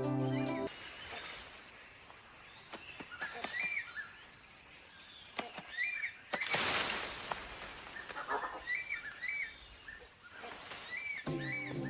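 Forest ambience with short, repeated chirping calls, often two in quick succession, and a brief loud rushing hiss about six and a half seconds in.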